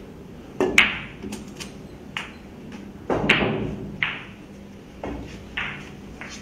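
Cue tip striking the cue ball, then sharp ringing clicks of pool balls colliding, loudest about half a second in. A duller thud about three seconds in, as a ball drops into a pocket, and a few lighter clicks after.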